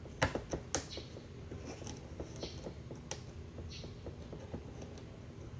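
Small bolt and nut being handled and threaded finger-tight through a plastic splitter panel: a few light clicks in the first second, then faint scraping and ticking.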